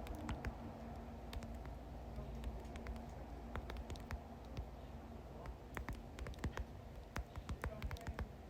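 Computer keyboard typing: faint, irregular key clicks, coming faster and in clusters in the second half.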